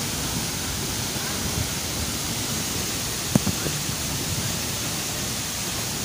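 Steady rush of a tall waterfall, about 30 to 40 m high, falling in heavy flow into its plunge pool. A couple of faint brief sounds come a little past halfway.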